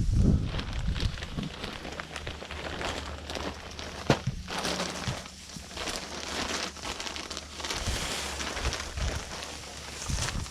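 Plastic vapour-barrier jacket of a fibreglass duct insulation sleeve and flexible duct crinkling and rustling as they are handled, with one sharp tap about four seconds in.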